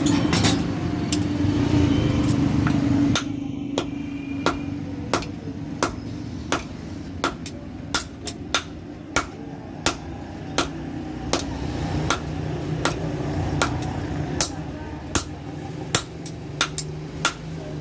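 Hand hammer striking steel on an anvil in a steady rhythm of about one and a half blows a second, each blow ringing briefly. A steady low hum dominates the first three seconds, before the regular blows set in.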